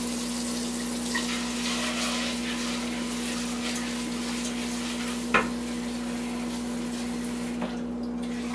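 Tap water running into a saucepan as lentils are rinsed in it, with one sharp knock of the pan about five seconds in. The water sound drops away near the end.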